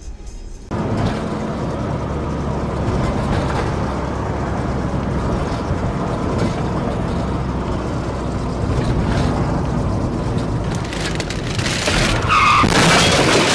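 Steady engine and tyre noise of a car driving, heard from inside the cabin through a dashcam, stepping up in level about a second in. Near the end it grows louder, with a brief high tyre squeal as another car cuts across in front.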